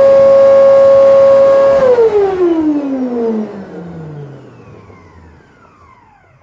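Hoover Breeze vacuum cleaner motor running with a loud, steady high whine, then switched off about two seconds in: the whine falls steadily in pitch and fades as the motor spins down.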